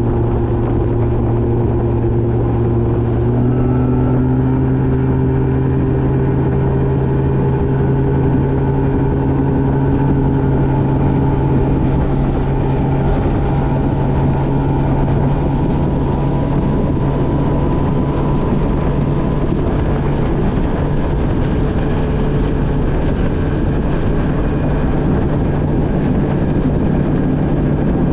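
Bass boat outboard motor running at speed under way on the water. The engine note steps up slightly about three seconds in and then climbs slowly.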